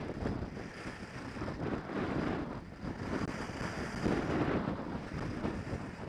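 Wind rushing over the microphone of a camera carried by a skier at speed, mixed with the hiss of skis on groomed snow, swelling and easing every couple of seconds.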